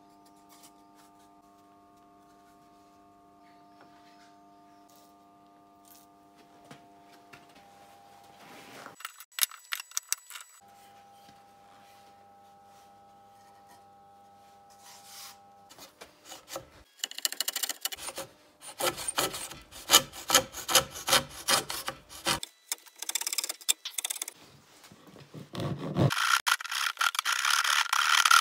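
A hand rasp scraping back and forth on the hardwood edge of a striped wooden cutting board, in loud rapid strokes with short pauses, starting a little past halfway and getting brighter near the end. Before that there are only faint steady tones.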